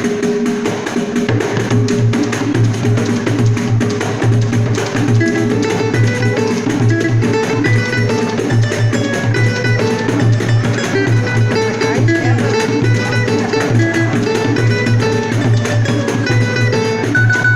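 Instrumental samba: a samba percussion group playing a steady driving beat, with a plucked string instrument; a melody of short stepped notes comes in about five seconds in.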